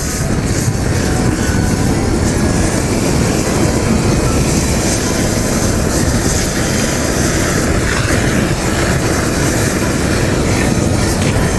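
Homemade air-atomized kerosene burner firing: a loud, steady rushing noise from the flame and the atomizing air jet, unbroken throughout.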